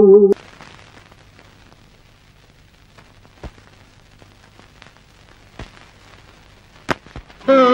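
An old Tamil film song ends on a held sung note a fraction of a second in, leaving faint hiss with a few scattered clicks and crackles. Near the end the next film song's music cuts in abruptly and loud.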